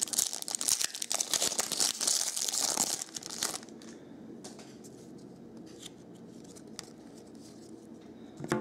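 Hockey card pack wrapper being torn open and crinkled for about three and a half seconds, then a few faint clicks as the cards are slid out and handled.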